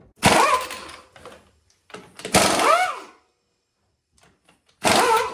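Pneumatic impact wrench on the lug nuts of a 1970 International Scout's front wheel, fired in three short bursts about two seconds apart, its whine rising and falling within each burst as it spins the nuts loose to take the wheel off.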